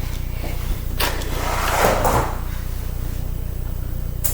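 Light metal parts of a laptop optical drive being handled: a click about a second in, a short scraping slide, and another click near the end, over a steady low hum.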